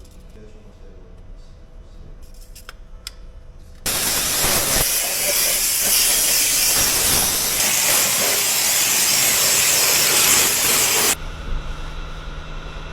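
A loud, steady hiss starts suddenly about four seconds in and cuts off abruptly about seven seconds later.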